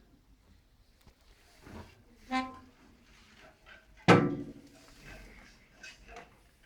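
Metal parts of a wood-burning stove clanking: a short ringing clink about two seconds in, then a loud clank about four seconds in that rings on for about a second, as of a metal stove door and latch being shut.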